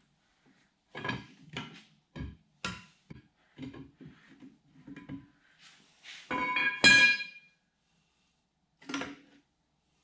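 Metal parts clanking and knocking against each other, a dozen or so sharp knocks. The loudest comes about six to seven seconds in: a hard clank that rings on briefly.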